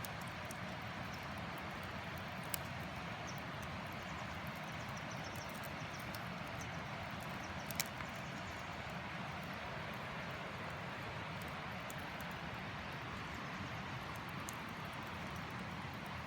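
Wood campfire burning in a small camp fire stand: a steady hiss of flames with scattered small crackles and a couple of sharper pops.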